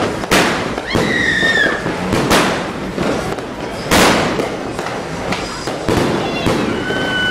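New Year's fireworks going off: about five loud sharp bangs spread over several seconds, with steady crackling between them.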